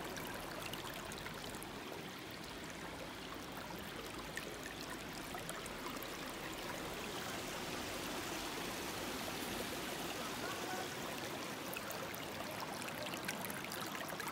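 Shallow rocky creek flowing over stones: a steady, even trickling rush of running water.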